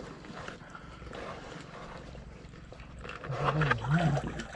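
A man's wordless vocal sound, a drawn-out wavering 'ooh' that rises and falls in pitch twice for about a second, about three seconds in, over a low steady background rush.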